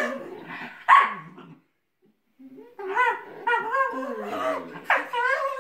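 Irish wolfhound puppy and Lagotto Romagnolo at rough play, giving a string of short, high, whiny yips and grumbles that bend in pitch, with a pause of about a second near two seconds in.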